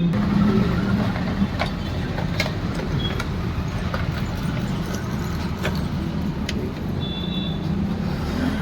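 A motor vehicle engine running steadily, with a few light clicks and a brief high-pitched tone about seven seconds in.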